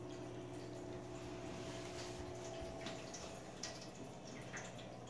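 Quiet bathtub room tone with a few faint, irregular light taps: kittens' paws and a small ball moving on the floor of an empty bathtub.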